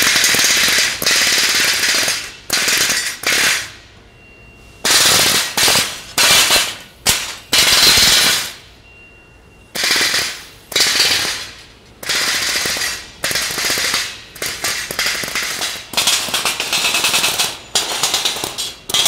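Pneumatic air hammer rattling against laser-cut steel sheet in repeated bursts of about half a second to a second and a half, punching the cut parts out of the sheet's skeleton.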